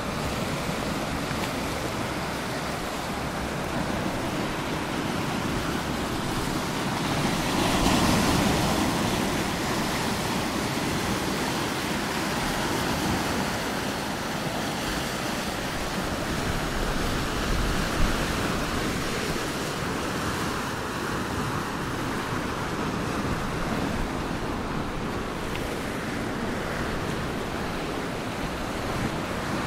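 Sea waves washing in, a steady rush that swells louder about eight seconds in, with a single thump about eighteen seconds in.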